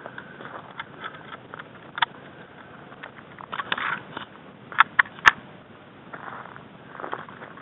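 Footsteps and rustling through dry grass on a dirt track, with body-mounted camera handling noise, then three sharp clicks in quick succession about five seconds in.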